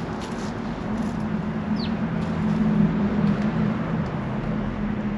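Steady low hum of road traffic or an engine, growing a little louder in the middle, with a few short, high bird chirps.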